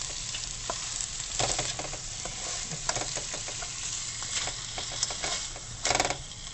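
Prawns sizzling as they stir-fry in a wok, a spatula scraping and knocking against the pan in frequent short strokes, with a louder scrape just before six seconds in.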